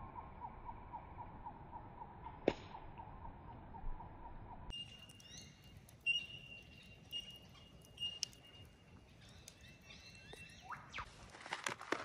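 Bush ambience: a steady high pitched pulsing call, then, after a sudden change about five seconds in, another steady high call with bird chirps. A few footsteps come near the end.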